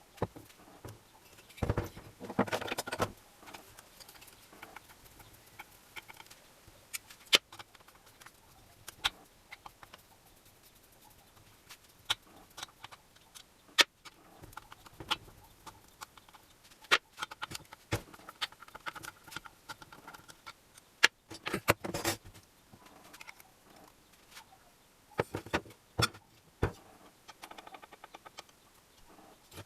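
Irregular clicks, knocks and rattles of metal parts and hand tools being handled during moped repair work. Twice there is a short burst of denser clattering.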